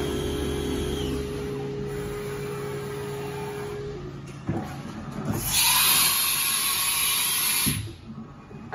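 Haas VF-4 CNC vertical machining center running, its axes moving with a steady hum and whine. A little past halfway a loud hiss starts, lasts about two and a half seconds and cuts off suddenly.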